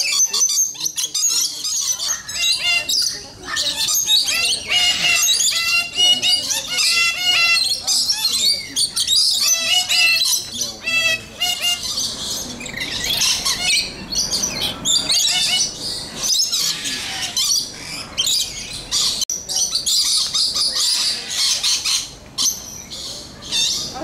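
A flock of lorikeets chattering and screeching, many shrill calls overlapping without a break.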